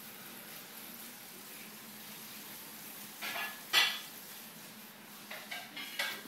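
A dachshund wriggling on a bedspread as its back is scratched: a few short scratchy rustles of fabric, the loudest a little before the middle and several more near the end.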